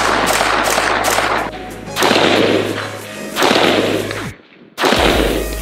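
AR-15 rifle firing: a quick string of shots for the first second and a half, then slower single shots about a second and a half apart, each with a long echoing tail. The sound drops out briefly just before the last shot.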